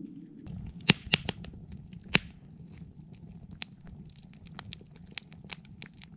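Wood campfire crackling and popping, with a few loud sharp pops about a second and two seconds in, then lighter scattered crackles.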